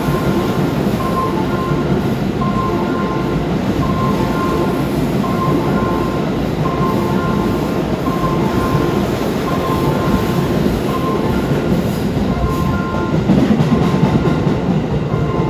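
Tokyo Metro 15000 series subway train passing through a station without stopping, a loud, steady rumble of wheels on rail that echoes in the underground station. Short high-pitched tones come and go over the rumble.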